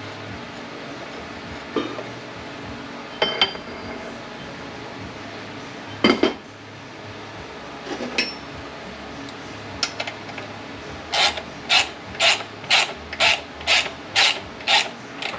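Metal tools and transmission parts clinking and clanking on a workbench during a teardown, a few sharp ringing knocks, then a run of about nine short, evenly spaced scraping strokes, about two a second, near the end.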